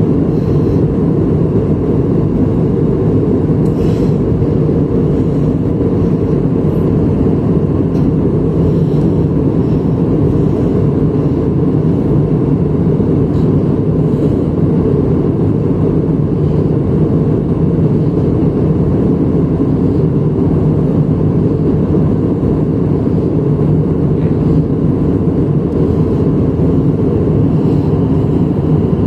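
Jet airliner cabin noise in cruise: the steady, low drone of the engines and the airflow over the fuselage, heard from inside the cabin, with no change in level.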